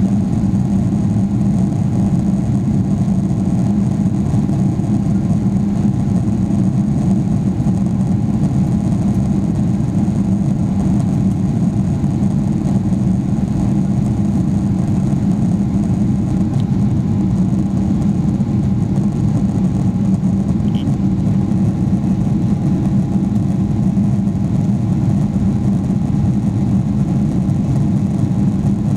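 Steady drone of a Boeing 777-300ER's GE90-115B turbofan engines with airflow noise, as heard inside the cabin during the climb. Low and even, with a faint constant whine above it.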